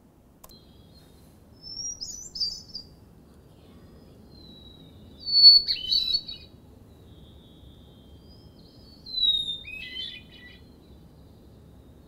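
Hermit thrush song: three phrases a few seconds apart, each a held clear whistle breaking into a quick fluty flourish, each pitched a little lower than the last, the middle one loudest. A fainter second hermit thrush sings in between, the two birds countersinging.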